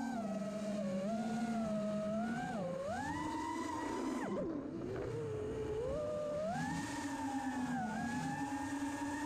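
Emax Buzz 5-inch FPV quadcopter's motors and propellers whining, the pitch rising and falling with the throttle as it flies, with a brief drop about four and a half seconds in.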